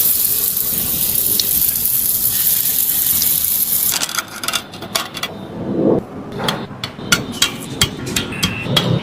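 A squishy toy being pressed and handled close to the microphone: a steady hiss for about four seconds, then crackling clicks and a few soft squishes.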